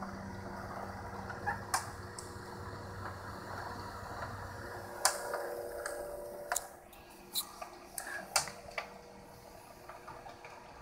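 ADIC FastStor 2 tape autoloader's internal mechanism running: a steady motor hum that stops about six and a half seconds in, with a scattering of clicks and clacks, the sharpest about five seconds in.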